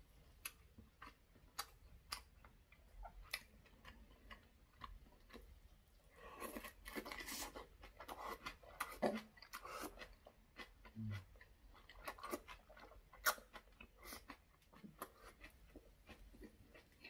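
Close-up mouth sounds of a person chewing a mouthful of braised saury and aged kimchi: wet chewing with many short, sharp clicks. A denser, louder stretch of chewing comes about six to ten seconds in.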